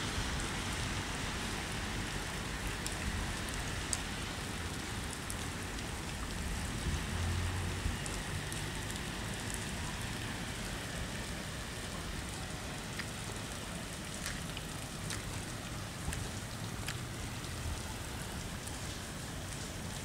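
Steady rain falling onto floodwater, with scattered small ticks of single drops.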